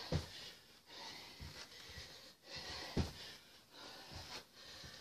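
A woman breathing hard during squat jumps, with dull thuds of her feet landing on the carpeted floor as she jumps down off the bottom stair, the loudest just after the start and about three seconds in.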